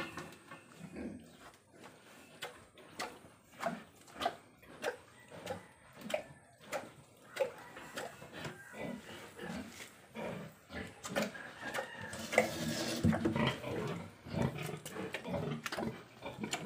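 Sow grunting in a steady series of short grunts, one or two a second, with a louder, rougher stretch about twelve seconds in. She is heavily pregnant and restless, close to farrowing.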